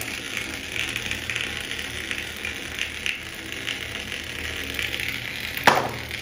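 Hard plastic balls clicking and rattling against each other in a bucket, with one sharp knock near the end.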